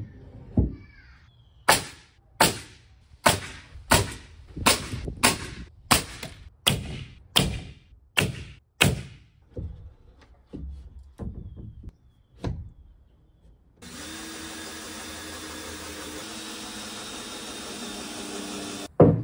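Nails being driven into wood framing: a run of about eleven sharp strikes at a steady pace, a little over one a second, then a few softer knocks. Near the end a power tool runs steadily for about five seconds.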